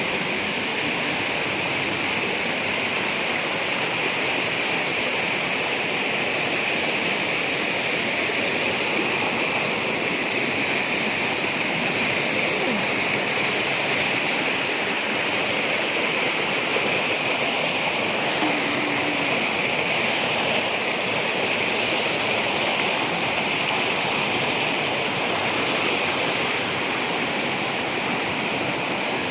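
Steady, unbroken rush of water at a waterfall.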